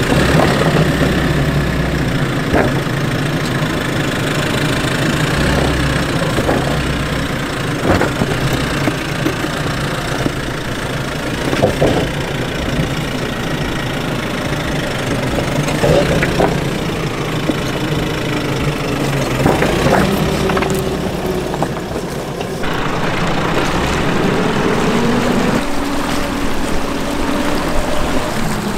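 Nissan Navara 4x4 ute's engine running at low revs as it crawls over creek-bed rocks, with occasional knocks of tyres and suspension on stone. About three quarters of the way through it drives into a creek crossing, and water splashes around the wheels while the engine note rises.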